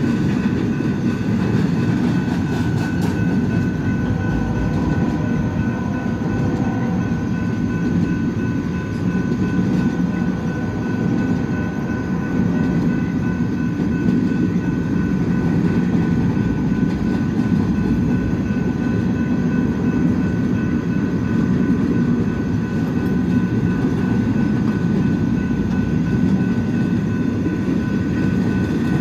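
BNSF intermodal freight train's cars rolling past: a steady, continuous rumble of wheels on rail.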